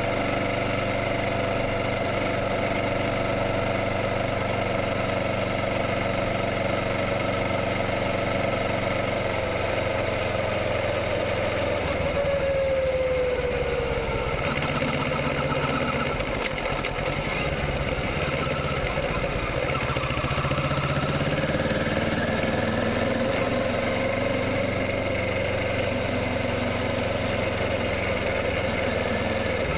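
Kawasaki Ninja 650's parallel-twin engine running steadily, its pitch falling about twelve seconds in, then rising and falling as the revs change.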